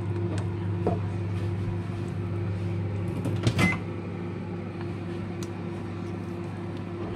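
A spatula stirring thick rice pudding in an aluminium pot: scattered scrapes and clicks, the loudest a little past halfway, over a steady low hum.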